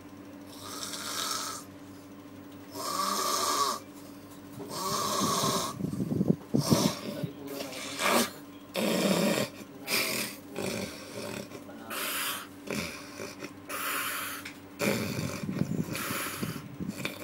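A person snoring, about one snore every two seconds at first, then shorter, quicker and more irregular snores, over a steady background hum.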